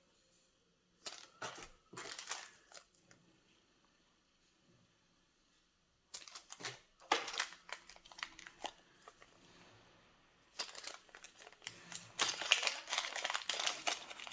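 Packaging crinkling and rustling as it is handled and opened, in three bouts of crackling with short quiet gaps between.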